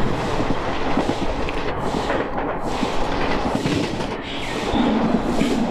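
Moving passenger train heard from an open coach doorway: a steady rumble and rattle of wheels on the rails, with many small irregular knocks mixed in.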